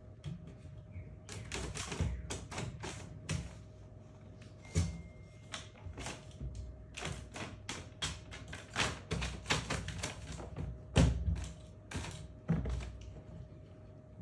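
A run of irregular taps, knocks and thuds on hard surfaces, several a second at times, the loudest about eleven seconds in.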